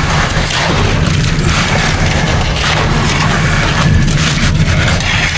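Concrete mixer truck's diesel engine running steadily while concrete pours down its chute, with rough, uneven scraping and sliding of wet concrete being pulled and spread.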